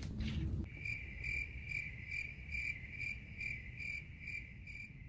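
Cricket chirping sound effect: an even, high chirp repeating about two and a half times a second, starting abruptly about half a second in. It is the comic 'crickets' cue for an unresponsive silence.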